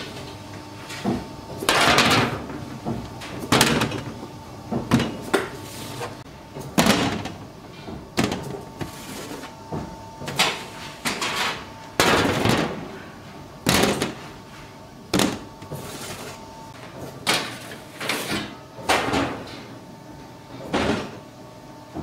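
Bakery work: irregular knocks, slaps and short scrapes every second or two over a steady machine hum.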